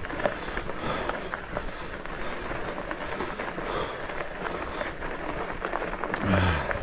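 Studded fat-bike tires rolling and crunching over a snow-covered trail: a steady noisy rumble. Near the end comes a brief low sound that falls slightly in pitch, the loudest moment.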